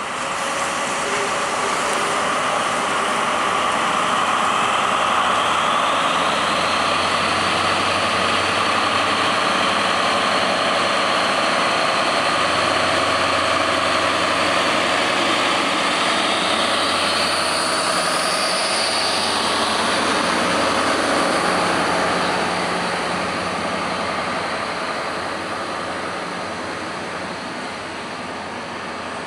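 DB class 218 diesel-hydraulic locomotive's V12 diesel engine running loudly as it hauls an Intercity train past, followed by the rumble of the coaches rolling by. The sound fades over the last several seconds as the locomotive moves away.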